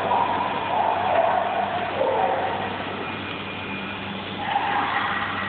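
Squeaking of a glass CO2 laser tube being pushed and turned in its rubber-lined mount, wavering squeals in the first two seconds and again near the end.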